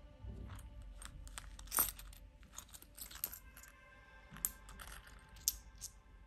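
Metal coins clinking in a few sharp clicks, the loudest just before two seconds in, as euro coins are tipped out of a leather card holder's zip pocket into a hand. Faint background music underneath.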